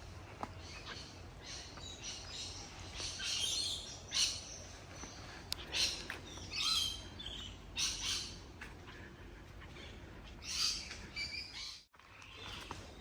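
Birds calling in rainforest: a series of short, high calls in separate bursts, some louder than others, over a low steady rumble, with the sound cutting out briefly near the end.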